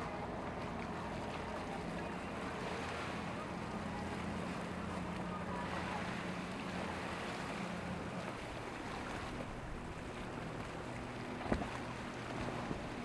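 Monterey cabin cruiser's engine running steadily as it passes through rough water, with the rush of its wake and the waves. A single sharp click near the end.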